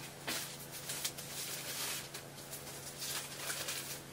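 Light, irregular rustling and scraping of the white protective wrap on a 27-inch iMac as it is handled and pulled off, over a faint steady low hum.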